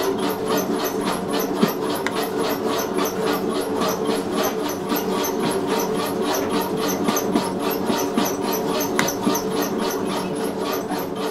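Motor-driven bakery machine running: a steady motor hum with a regular clatter about four times a second, cutting off suddenly at the end.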